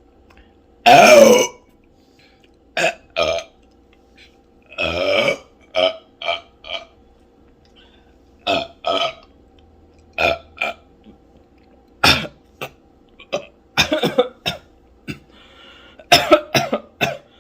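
A person burping loudly. There is a long burp with a falling pitch about a second in and another around five seconds, then a string of short burps and throaty bursts through the rest.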